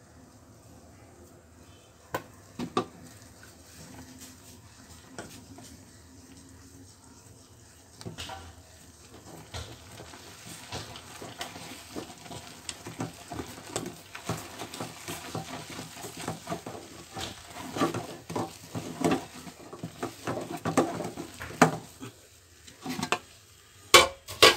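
Wooden spoon stirring and scraping flour into hot water in a stainless steel pot, scalding the flour for paratha dough. For the first few seconds there is only a low hiss and a couple of knocks. From about eight seconds in comes a dense, irregular run of scrapes and knocks against the pot that grows louder, with a few sharp knocks near the end.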